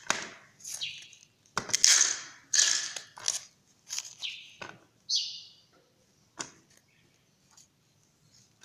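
A spoon scooping and scraping through loose, moist soil: a series of short scratchy rustles over the first five seconds or so, then a sharp click about six and a half seconds in and a few faint ticks.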